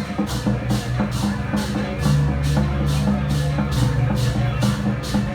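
Loud percussion music with drums: sharp high strikes repeat about twice a second over low held tones.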